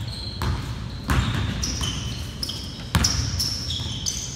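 Basketball being dribbled on a hardwood gym floor, a few irregularly spaced bounces, with high sneaker squeaks on the floor through the second half.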